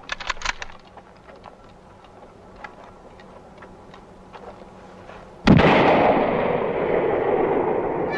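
Faint clicks and rustles, then about five and a half seconds in a single loud rifle shot, its echo rolling on and fading slowly over the next few seconds.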